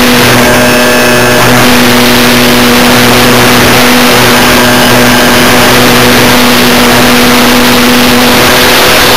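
A Multiplex EasyCub RC model plane's electric motor and propeller run at a steady pitch, recorded very loud from on board. A heavy rush of wind and propeller wash sits over the motor hum.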